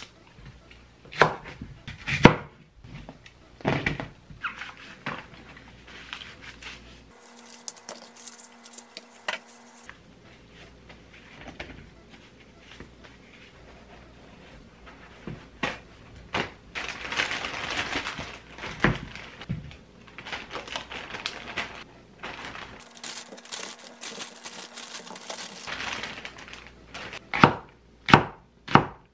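Kitchen prep on a wooden cutting board: Korean green onions are handled and trimmed, with scattered knocks and stretches of paper-towel rustling. Near the end, a Chinese cleaver chops the green onion on the camphor-wood board in several quick, loud strikes.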